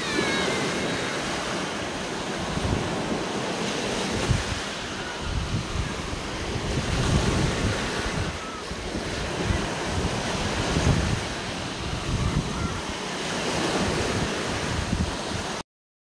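Small surf breaking and washing up the sand of a beach in swelling, receding rushes, with wind buffeting the microphone. It cuts off suddenly near the end.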